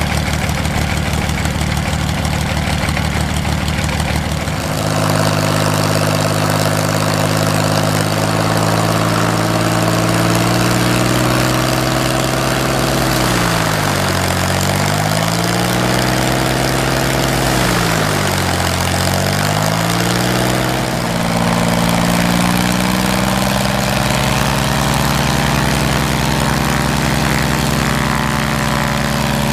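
Dornier Do 27's geared Lycoming flat-six engine and propeller running at low revs as the plane taxis on grass. About four seconds in the engine note rises, then steadies; twice in the middle the revs sag briefly and pick up again.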